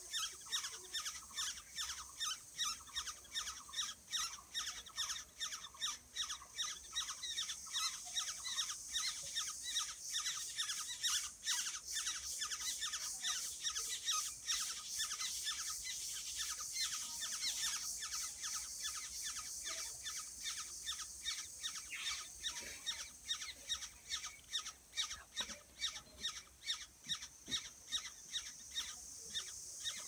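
Black-hooded oriole nestlings begging at the nest: a continuous run of rapid, raspy calls repeated several times a second while the adult feeds them.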